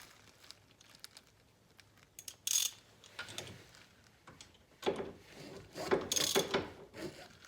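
Short bursts of metallic clicking and clanking from hand tools working on a disc brake part that will not come loose. The bursts start about two and a half seconds in and are loudest around six seconds.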